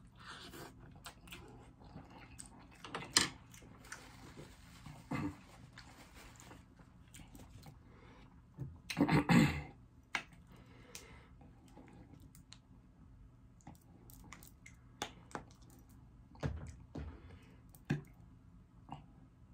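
Close-miked eating sounds: chewing and slurping noodles, then scattered clicks and squelches as sauce bottles are squeezed over fried chicken. The loudest moment is a short burst of noise about nine seconds in.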